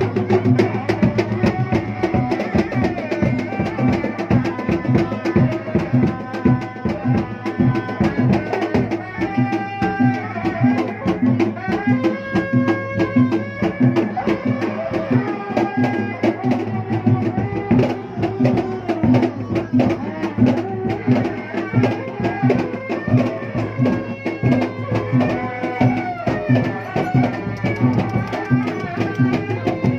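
Sundanese reak music: dense, steady drumming with a wavering melody line played over it.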